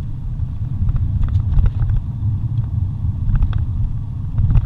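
Car driving on a paved road, heard from inside the cabin: a steady low rumble of engine and tyres, with a few faint light ticks and rattles.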